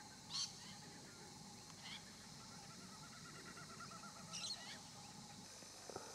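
Wild birds calling faintly: a short high chirp near the start, another about two seconds in, a quick even trill in the middle, and a warbling call about four and a half seconds in.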